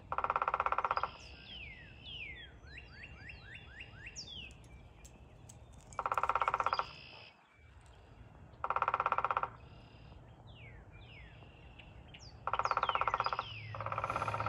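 A black-and-white woodpecker, which the owner takes for a downy woodpecker, drumming on a tree limb: four rapid rolls of evenly spaced taps, each about a second long, at the start, about six seconds in, about nine seconds in and near the end. Between the rolls, another bird calls faintly in short series of falling notes.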